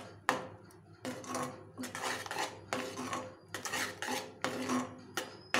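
A steel ladle scrapes and stirs thick white-chocolate fudge mixture around an aluminium kadai, metal rubbing on metal, in repeated strokes about two a second. The bottom is being scraped to keep the fudge from sticking.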